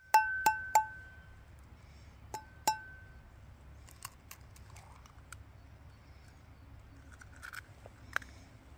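A utensil clinking against cookware: three quick ringing clinks, then two more about two seconds later, followed by lighter taps and clicks.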